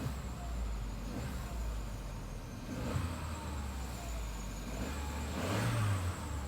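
Car engine running with a steady low rumble that swells briefly about five and a half seconds in.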